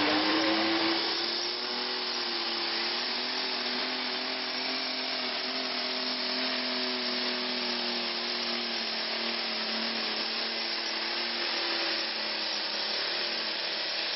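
Turbocharged diesel engine of a John Deere pulling tractor at full throttle, dragging a weight-transfer sled under heavy load. Its pitch climbs in the first second, holds steady, then sags a little later on as the load builds.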